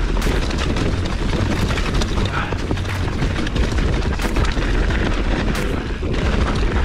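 Riding noise from a Specialized Stumpjumper ST Alloy 29 mountain bike rolling fast over a dirt trail strewn with leaves, heard on a chest-mounted action camera. Wind buffets the microphone in a deep rumble, the tyres rush over the leaves and dirt, and the bike gives a few sharp knocks and rattles.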